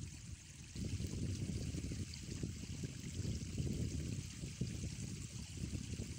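Wind buffeting the microphone: an uneven low rumble that gets louder about a second in, over a faint steady hiss.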